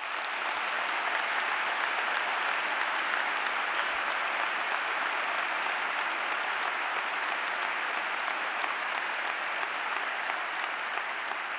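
A large arena audience applauding in a steady, sustained round of clapping.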